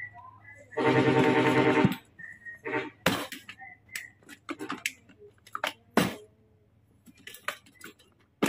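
A loud, held pitched call lasting about a second, starting about a second in. After it come scattered sharp clicks and knocks of the rice cooker's plastic casing as it is handled and pried open.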